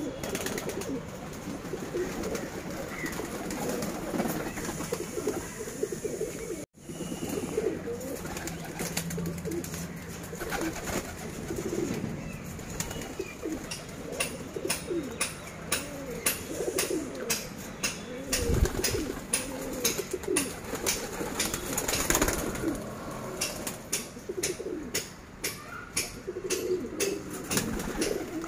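Several domestic pigeons cooing over one another, with scattered sharp clicks and taps.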